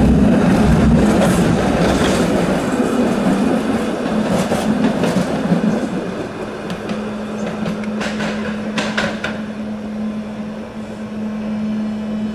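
SEPTA Kawasaki streetcar passing close on street track, its wheels rumbling and clacking over the rails with a few sharp clunks. From about six seconds in the running is quieter and a steady low hum holds under it.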